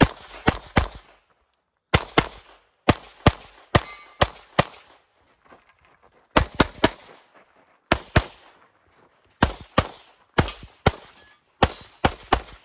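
Pistol shots on a competition stage: about twenty sharp cracks fired mostly in quick pairs and triples, with pauses of about a second between strings as the shooter moves between positions.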